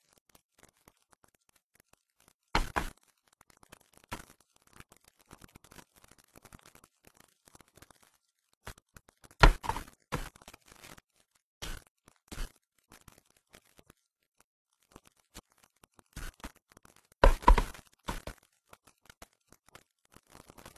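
Sparse clinks, knocks and scrapes of bowls and chopsticks during a quiet meal, with long near-silent gaps; the loudest knocks come in small clusters about halfway through and toward the end.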